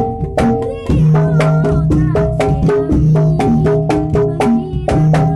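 Javanese gamelan ensemble playing, a hand-struck kendang barrel drum driving quick, even strokes over pitched metallophone and kettle-gong tones, with a long low gong-like tone held under them from about a second in.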